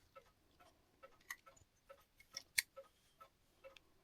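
Faint, irregular light metallic clicks of small clock parts being handled as a retaining clip is worked onto the end of a spring barrel arbor in a clock movement.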